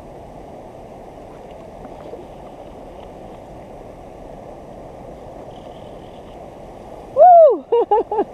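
Steady rush of flowing creek water. About seven seconds in, a woman gives a loud, excited "Woo!" that breaks into several short whoops.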